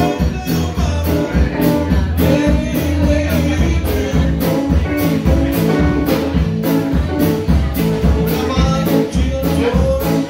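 Live rock band playing: drum kit keeping a steady beat under electric bass and electric guitars. A woman's voice comes in singing near the end.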